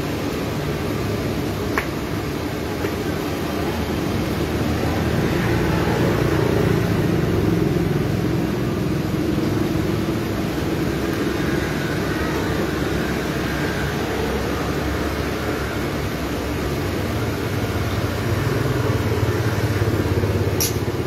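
Steady street traffic noise: engines running and passing, swelling and fading. A short, sharp click sounds near the end.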